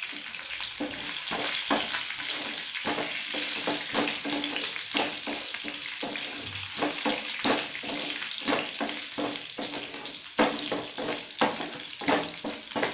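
An Indian tempering of garlic, lentils, cumin, mustard seeds and dried red chillies sizzling in hot oil in a nonstick frying pan, with frequent irregular crackles and pops, stirred with a wooden spatula.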